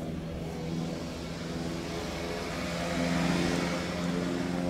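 Piper PA-46 single-engine propeller airplane flying overhead: a steady engine and propeller drone, with a rushing hiss that swells about three seconds in as it comes closer.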